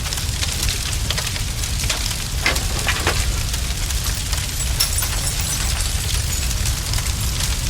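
Fire burning, with a steady low rumble under constant crackling and popping; two louder snaps come about two and a half and three seconds in.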